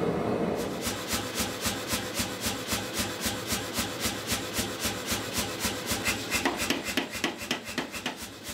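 Say-Mak power hammer running, its ram striking in an even rhythm of about four blows a second on a glowing steel block. A gas forge burner roars steadily for the first half-second before the blows begin.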